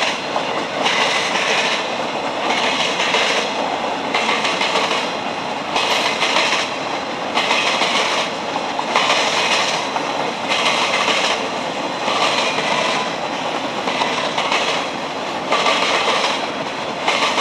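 Freight train boxcars rolling past, their steel wheels clattering over the diamond crossing, with a burst of clatter about every second and a half as each car's wheel sets pass.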